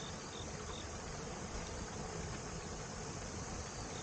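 Insects chirping in a steady rhythm of about two to three chirps a second, fading out about a second in, over a steady hiss.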